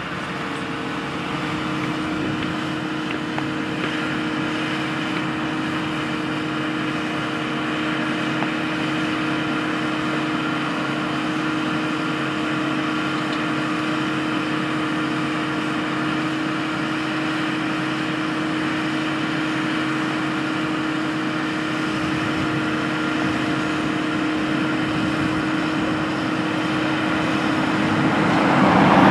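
Diesel engine of a Case IH Quadtrac 620 track tractor running steadily under load as it pulls a strip-till bar: a constant drone with a steady hum, growing louder near the end.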